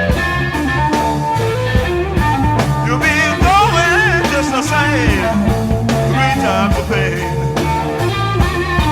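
Live psychedelic blues-rock music: an electric guitar lead with bending, wavering notes over bass guitar and drums.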